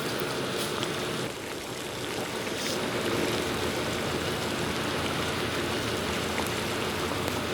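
Steady machine hum with a rushing noise, dipping briefly about a second in.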